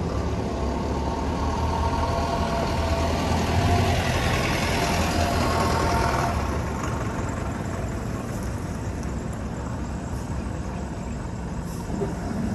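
Diesel engine of a 2007 Sterling compactor trash truck running as the truck drives past, loudest a few seconds in and then fading as it pulls away.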